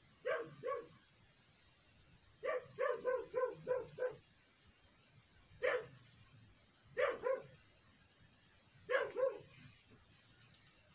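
A dog barking in short bouts: a pair of barks, a quick run of about six, a single bark, then two more pairs.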